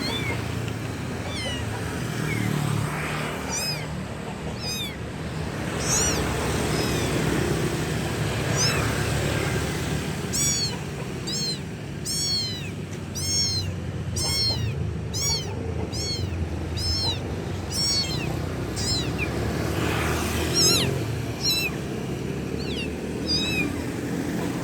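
Kitten meowing loudly over and over, a string of short high-pitched calls that rise and fall, coming in quick succession through the middle: a kitten calling for its mother.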